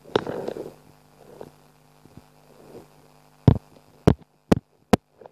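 Four sharp knocks or taps in the last two seconds, about half a second apart, over a faint steady hum.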